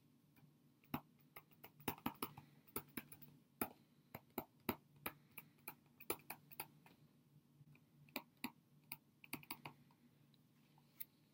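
Stylus pen tapping and clicking on a tablet screen while handwriting, a faint, irregular string of sharp clicks starting about a second in and thinning out near the end, over a faint steady low hum.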